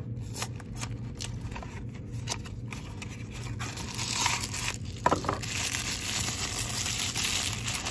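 A cardboard toy-car box being opened by hand, with scrapes and small clicks as the flap is pried and torn. From about four seconds in, the car's thin plastic wrapper crinkles steadily as it is pulled out and unwrapped.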